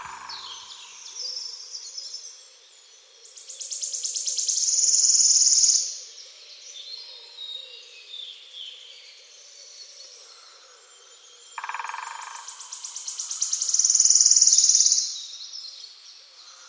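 Songbirds singing in woodland: two loud songs, each a quickening high trill that swells over two to three seconds, with quieter chirps and calls between them.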